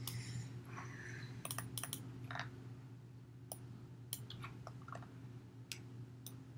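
Irregular clicks and keystrokes of a computer keyboard and mouse, about a dozen in all, over a steady low electrical hum.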